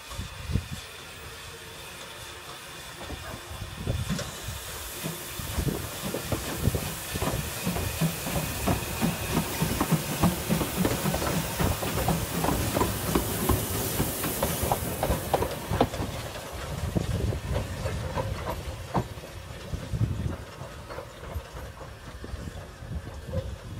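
Narrow-gauge steam locomotive passing close by at low speed: a hiss of steam with a run of short knocks, loudest about halfway through, then easing off as it moves away.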